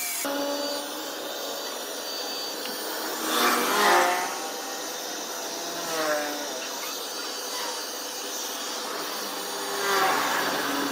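Electric power tool running steadily on wood, with three swells where its pitch and loudness shift under load.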